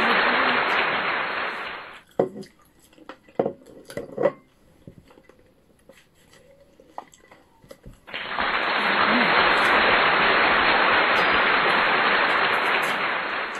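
A loud, steady hiss stops abruptly about two seconds in and comes back just as abruptly about eight seconds in. In the quiet between, there are faint scattered clicks and small mouth noises from cherries being eaten.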